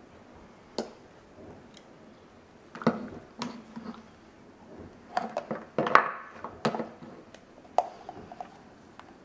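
Small plastic Play-Doh tubs, lids and tools being handled and knocked together: scattered clicks and knocks, busiest from about five to seven seconds in.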